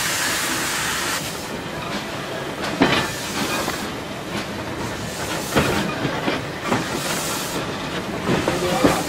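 Train 1900 heritage train carriage rolling slowly, its wheels knocking over rail joints every couple of seconds over a steady rumble. A hiss of steam fades out about a second in and comes back briefly around seven seconds.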